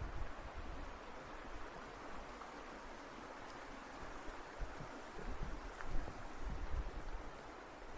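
Steady outdoor wind rushing, with low gusts buffeting the microphone now and then.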